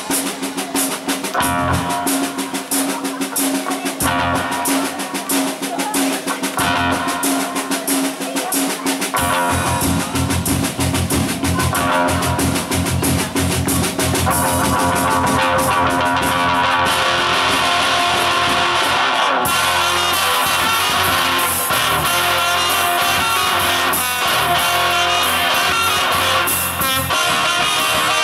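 Live band playing: a drum kit with rimshots at first, a low bass line coming in about nine seconds in, then electric guitar and a trumpet joining for a fuller, steady groove.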